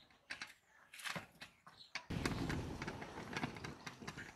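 Dry sticks and straw crackling and snapping as they are handled and fed into a mud wood-fired stove: a few sharp separate snaps at first, then from about two seconds in a steadier, louder low rustle with crackles on top.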